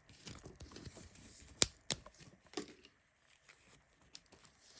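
Light rustling of zippers and their packaging being handled, with two sharp clicks about a second and a half and two seconds in.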